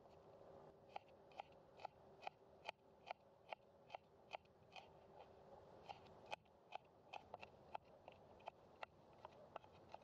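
Broad cleaver-style kitchen knife chopping garlic cloves on a wooden cutting board: a steady run of light chops, about two or three a second, starting about a second in, with a short pause near the middle.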